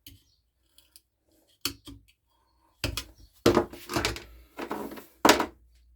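Strimmer parts and tools being handled on a workbench: scattered knocks and clunks, a run of them after about three seconds, the loudest one near the end.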